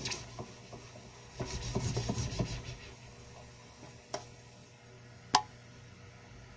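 Quiet handling noise at a DJ's turntable setup: soft rubbing and light taps, then a small click and, about five seconds in, one sharp click.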